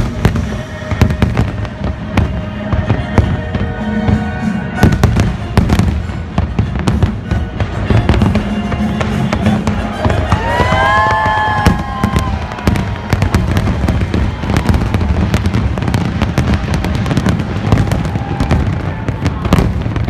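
Fireworks bursting in a dense, rapid barrage of bangs and crackles over the show's accompanying music, with a whistling glide about halfway through.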